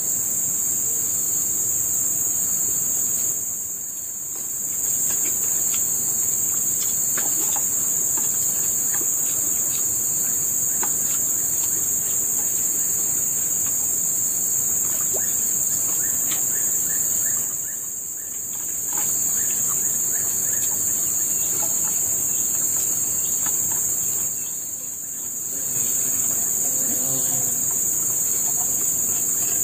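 Forest insects in a steady, high-pitched droning chorus that dies down briefly three times, with faint light clicks beneath.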